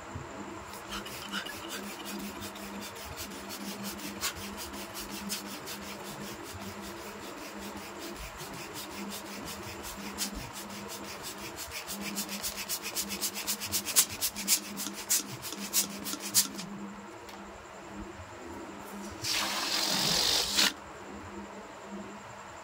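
Hands rubbing and handling inflated latex balloons: a long run of scratchy rubbing clicks that grows denser and louder, then stops. Near the end comes a hiss of rushing air about a second and a half long.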